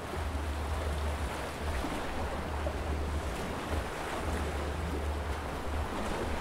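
Calm sea washing steadily against a rocky shore, an even hiss of water with no single breaking wave standing out. Low wind rumble on the microphone comes and goes underneath.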